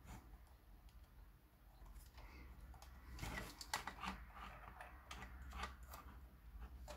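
Faint handling sounds of a camera body as a 3D-printed threaded adapter is slid into its hot shoe: light rubbing, then a cluster of sharper plastic clicks from about three to six seconds in.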